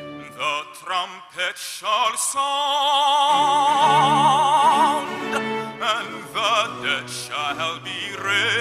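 A man singing in classical operatic style with heavy vibrato over orchestral accompaniment, holding one long note in the middle.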